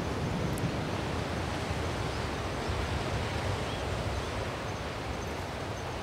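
Sea surf washing and breaking against a rocky shore, a steady rushing noise.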